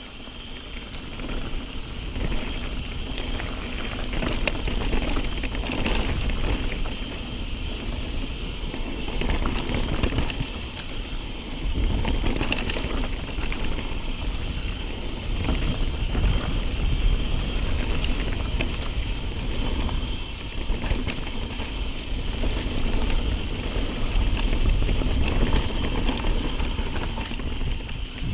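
Mountain bike riding fast down a dirt singletrack: tyres rolling over dirt, with the bike rattling and knocking over bumps and a heavy rumble of wind on the microphone.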